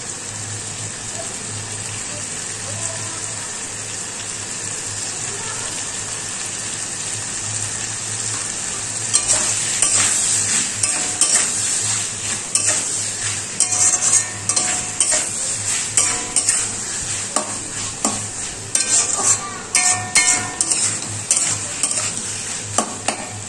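Onions and tomatoes sizzling in a metal kadai. About nine seconds in, a metal spatula starts scraping and knocking against the pan in quick, irregular strokes as the mixture is stirred.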